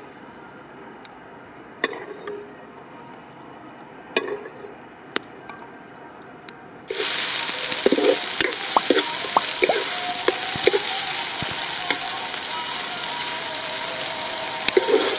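Eggplant frying in hot oil. A few light knocks and clinks come first, then about halfway through a sudden loud sizzle starts as the food goes into the oil and keeps sizzling, with scattered pops.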